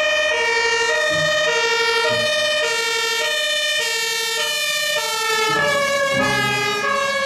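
Fire engine's two-tone siren, alternating steadily between a lower and a higher note about every half second. The siren drops in pitch from about five seconds in as the engine passes close by.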